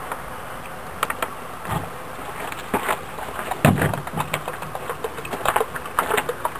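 Water poured from a plastic bottle into a stainless steel cup, with irregular small clicks and taps as the bottle and cup are handled.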